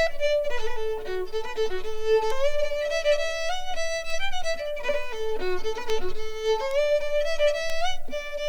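A fiddle playing a tune alone: a single melody line of quick, stepping notes.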